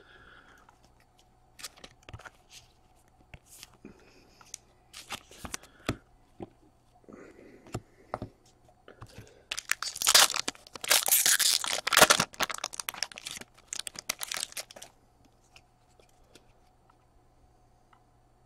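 A foil-wrapped hockey card pack being torn open and crinkled by hand, loud for about five seconds midway. Light rustles and clicks of cards being handled come before and after it.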